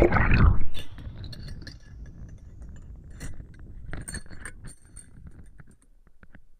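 Heard through a VT500X lavalier mic as it goes into the water: a loud splash and gurgle in the first second, then scattered clinks and jingles of small metal tools hanging on its cable, muffled by the water.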